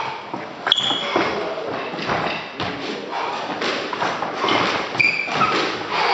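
Court shoes thudding and squeaking on a wooden squash court floor as a player moves quickly around the court, a string of quick footfalls with a few short, high shoe squeaks.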